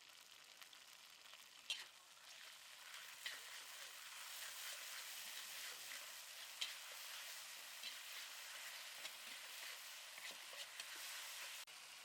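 Food frying in a pan, a steady sizzle that grows louder about four seconds in, with sharp clicks now and then as it is stirred.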